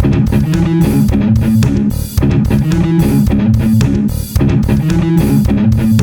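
Instrumental rock music: heavy guitar and bass riff over a drum kit beat, repeating in roughly two-second phrases.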